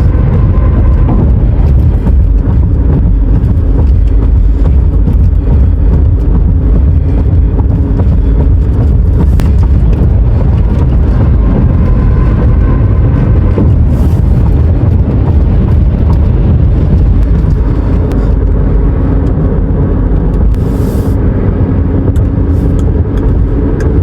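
Highway traffic: a steady, loud low rumble of vehicles and tyres, with a brief hiss near the end.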